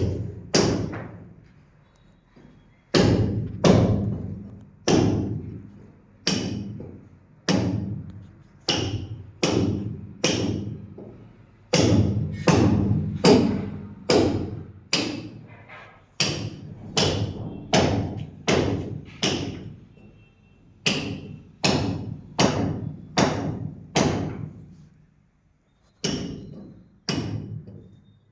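Hammer blows struck over and over, about one a second with a few short pauses, each a sharp knock followed by a brief ringing decay.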